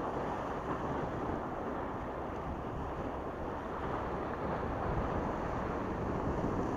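Small sea waves washing and splashing against the rocks of a breakwater, with wind buffeting the microphone, as a steady rushing noise.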